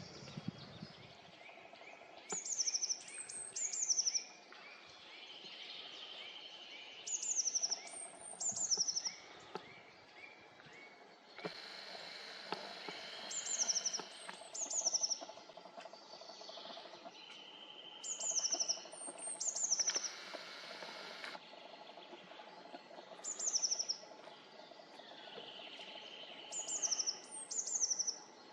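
Small songbird singing, repeating a short, very high-pitched phrase of two quick descending trills about every five seconds, with quieter calls from other birds. A steady hiss comes in for several seconds in the middle.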